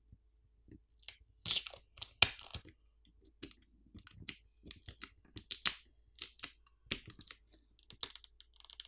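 Plastic crinkling and crackling from a smartphone battery's adhesive pull tab as fingers grip it and start pulling the battery free: a run of irregular sharp crackles and snaps, starting about a second in.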